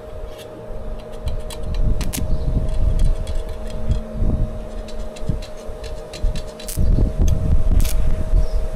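Strong wind buffeting the microphone in gusts, heaviest from about two-thirds of the way in, over a steady hum, with scattered sharp clicks and crackles.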